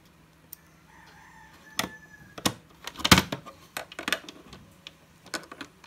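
Irregular sharp clicks and knocks of screws and the UPS's plastic case being handled while a couple of case screws are put back in, the loudest knock about three seconds in. A rooster crows faintly in the background about a second in.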